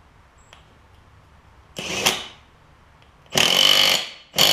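Handheld power tool run in three short bursts on a lawn tractor's mower deck spindle: a brief one about two seconds in, then two longer ones near the end.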